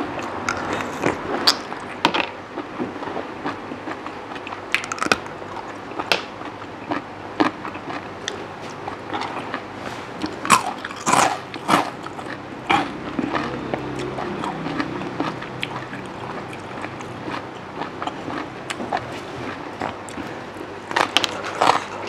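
Close-miked eating sounds: chewing and mouth smacks of someone eating spicy Thai papaya salad with rice noodles and seafood by hand, with many irregular sharp clicks and crunches, a little louder about ten to twelve seconds in.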